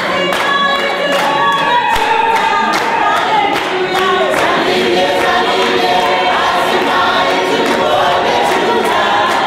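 A choir of many voices singing together in harmony over a steady beat.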